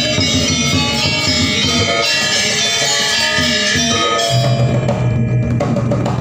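Balinese gamelan gong ensemble playing: bronze metallophones struck with mallets in dense interlocking patterns over kendang hand-drum strokes. Near the end the bright metallophone layer drops away, leaving a low steady tone and drumming.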